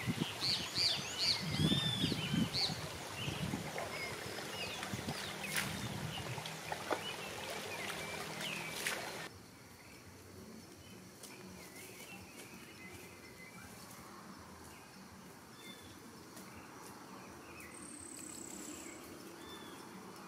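Songbirds calling over footsteps through grass for the first several seconds. About nine seconds in the sound drops to a quieter woodland background with occasional faint bird calls and one high, thin call near the end.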